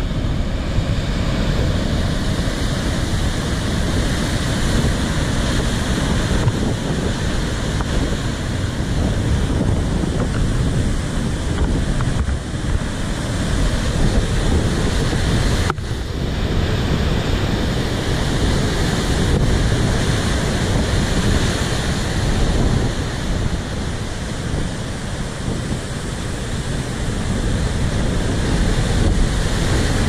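Big ocean waves breaking against coastal rocks, a continuous wash of crashing, churning white water, with wind rumbling on the microphone.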